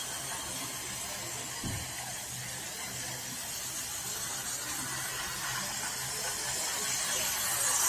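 Toy train running on plastic track some way off, a steady hiss with a faint low hum that grows louder near the end as the train draws closer. A single low thump about one and a half seconds in.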